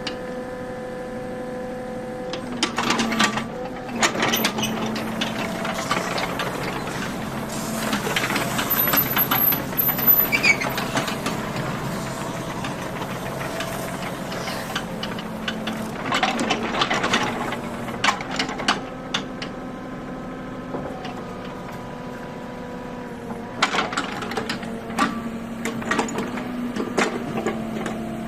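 Kubota U30-3S mini excavator's diesel engine running steadily, with about four louder stretches of clattering and knocking.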